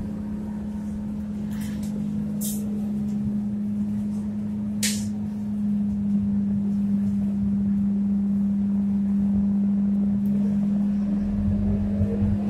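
Cabin sound inside a Scania K230UB single-deck bus: a steady, even hum from the running bus, with two short hisses about two and five seconds in. Near the end a low rumble grows louder.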